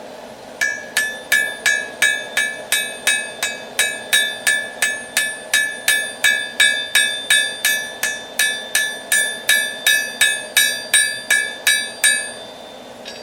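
Hand hammer striking a railroad spike on an anvil, forging it into a knife: a steady run of blows, about three a second, each with a bright metallic ring. The blows start just under a second in and stop about a second before the end.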